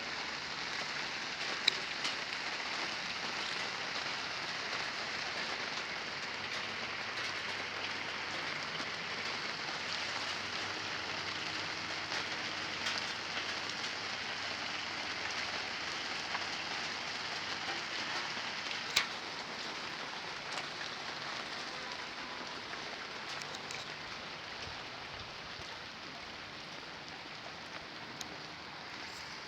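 Rain falling steadily, a light early-evening shower just beginning, with a few sharp drop hits standing out, clearest about 2 s and 19 s in. It eases slightly toward the end.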